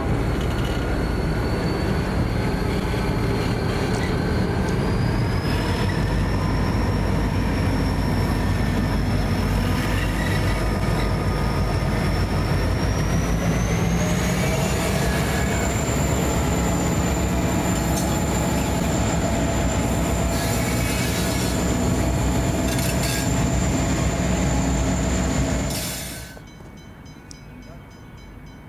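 A loaded grain train passing close by: the diesel-electric locomotives' engines run, then the grain hopper wagons roll past over the rails with a steady, loud running noise. A high wheel squeal climbs in pitch in two steps. The sound drops sharply to a much quieter background about 26 seconds in.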